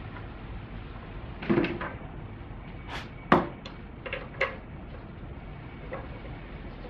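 Knocks and scrapes as a rubber serpentine belt is worked by hand around the engine's pulleys, engine off: a handful of short handling noises between about one and a half and four and a half seconds in, the sharpest just past three seconds.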